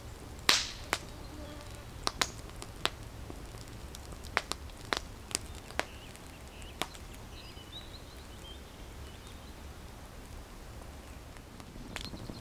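Log campfire crackling, with sharp, irregular pops that come often for the first several seconds and then thin out.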